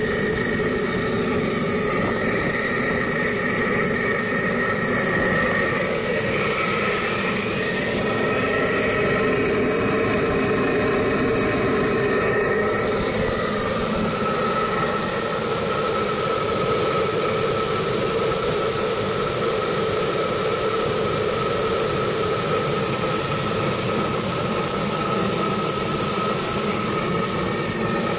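1949 Bolinder-Munktell BM20 tractor engine running steadily.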